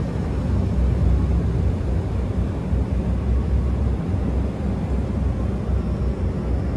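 Low, steady rumble of a car ferry's engines as the ship comes alongside the pier to berth.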